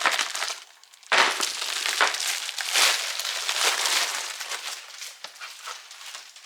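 Packaging around new yard-cart tires being ripped open and crumpled: a dense crackling rustle. A short burst comes at the start, then a louder stretch begins about a second in and dies down over the last two seconds.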